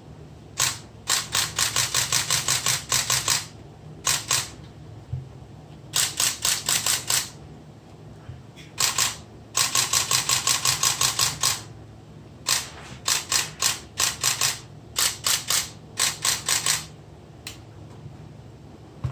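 Nikon D7000-series DSLR's newly fitted shutter firing in repeated bursts of continuous shooting, about six crisp clicks a second, with short pauses between the bursts: test firing after the shutter assembly was replaced and timed.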